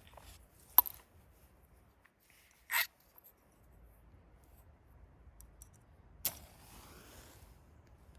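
Objects being handled: a sharp click, then a short scraping swish about two seconds later, and another click near the end, over quiet surroundings.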